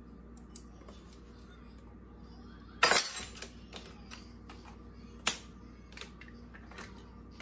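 Two sharp clinks about two and a half seconds apart, with a few faint taps between: metal measuring spoons and spice jars being handled and set down on a kitchen countertop.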